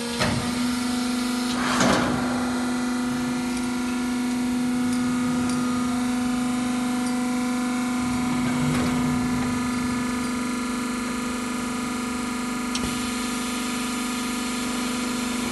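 Samco TC-115 press running with a steady electric hum. Its sliding bed is pushed in under the head with a louder rushing movement about two seconds in, and a second louder movement comes around nine seconds.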